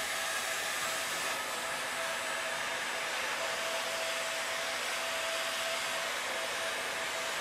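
Electric handheld heat gun blowing steadily, a constant rush of air with a faint steady whine from its motor, as it heats thermoformable carbon composite sheet on a plaster mold.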